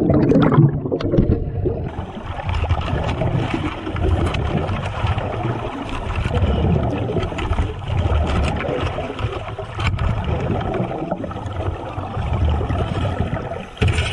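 Water churning and bubbling around a dive cage as a great white shark bites at it, with heavy surges every two seconds or so.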